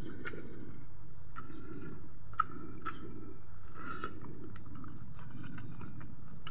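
Close-up chewing and wet mouth clicks of someone eating fried chicken, rice and king chilli by hand, with one louder click about two and a half seconds in.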